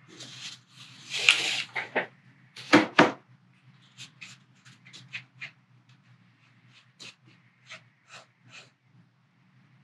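Small metal spatula scraping and tapping on a paper plate as it stirs five-minute two-part epoxy. A few louder scrapes and two sharp clicks come in the first three seconds, then short, faint stirring strokes about twice a second, over a low steady hum.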